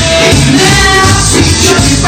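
A rock and roll record with singing over a steady beat.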